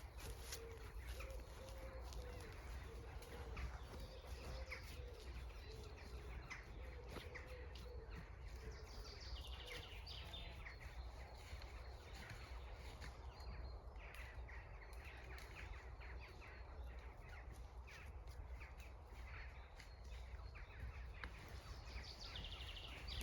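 Birds singing and calling outdoors: one bird calls over and over in the first several seconds, and small birds chirp at intervals. Under them runs a steady low rumble and many soft crunching clicks from an alpaca eating.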